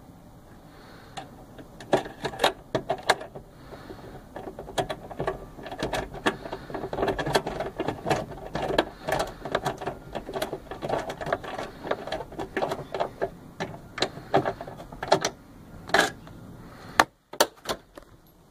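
Quick runs of sharp metallic clicks as the nuts holding the quarter glass are tightened down with a hand tool. The clicking starts about two seconds in and stops a couple of seconds before the end.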